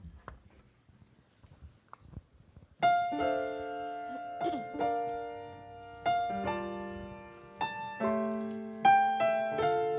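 Piano playing the introduction to a hymn. After a few faint knocks, slow chords begin about three seconds in, each struck and left to ring before the next.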